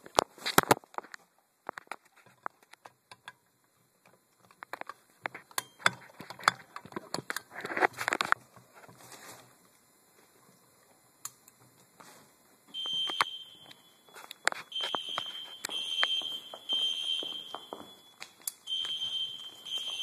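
Scattered clicks and knocks of a fire alarm pull station being handled. From about 13 seconds in, the building's fire alarm sounds a high-pitched tone in repeated pulses of about a second each, with short gaps between them.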